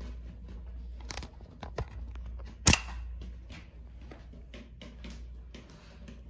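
Wire whisk clicking and scraping against a mixing bowl as heavy cream is whipped by hand, in quick irregular strokes. One sharp knock about two and a half seconds in, louder than the rest.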